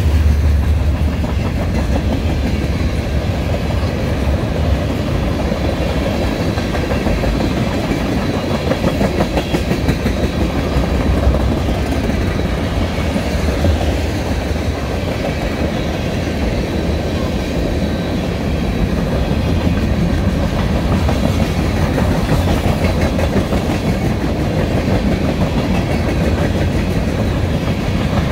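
Freight train cars rolling past close by: a steady rumble of steel wheels on rail with a dense run of wheel clicks, as a mixed string of flatcars, tank cars and covered hoppers goes by.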